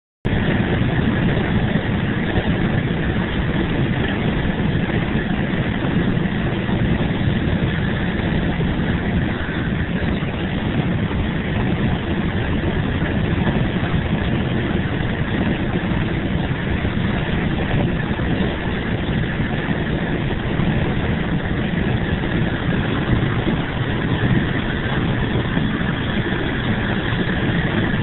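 Motorcoach driving at highway speed: steady engine and road noise heard inside the cabin.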